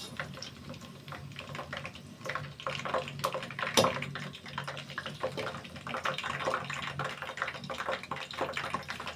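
Food deep-frying in a pot of foaming hot oil: a dense, steady crackle of small pops, with one sharper crack just before four seconds in and a low hum underneath.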